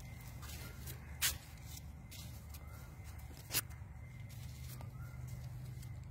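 Quiet handling and rustling as a phone is moved in among capsicum plant leaves, with scattered light clicks and two sharper clicks about a second and three and a half seconds in, over a steady low hum.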